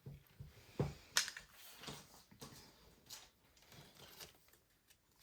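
Hands handling small plastic toys and packaging: a run of light, irregular clicks and taps, the two sharpest about a second in.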